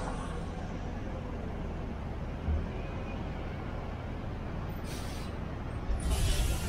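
Steady low rumble of city-centre street traffic with a heavy vehicle close by. There is a dull thump about two and a half seconds in, then two bursts of pneumatic hiss near the end; the second is longer and is the loudest sound.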